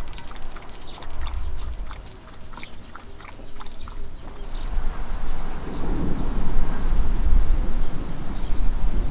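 A poodle eating from a stainless-steel bowl, with quick irregular crunches and clicks. From about halfway, a low rolling rumble of thunder swells up and carries on to the end.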